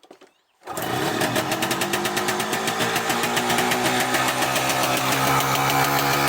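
Fantic 243 trials bike's single-cylinder two-stroke engine firing up suddenly under a second in after being kickstarted, then running steadily with rapid, even firing. It is the first start after its crank oil seals were replaced.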